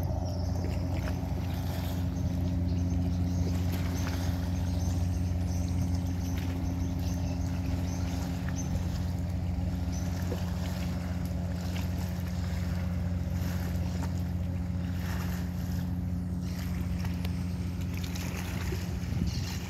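Steady low drone of a boat engine, with wind and water noise over it.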